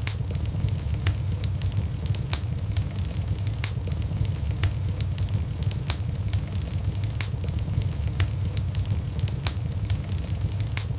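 Wood fire burning in a fireplace: a steady low rumble with frequent sharp, irregular crackles and pops from the burning logs.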